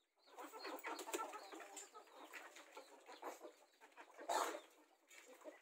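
A flock of domestic chickens clucking softly while foraging, with one louder call about four seconds in.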